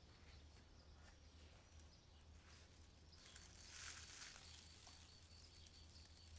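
Near silence: faint outdoor ambience with a low steady hum and a soft rustle about three seconds in.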